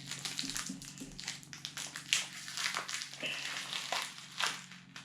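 Small plastic toy-packaging wrapper crinkling and crackling as it is handled and opened by hand, with a few sharper snaps.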